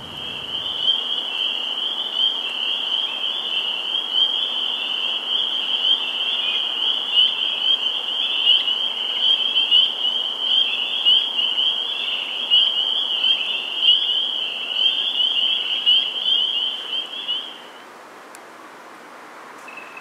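Dense chorus of spring peepers: a continuous wall of high-pitched peeping that cuts off abruptly near the end, leaving only faint background.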